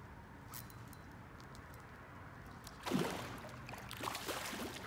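Water splashing at the surface in irregular bursts, starting about three seconds in, over a quiet steady background.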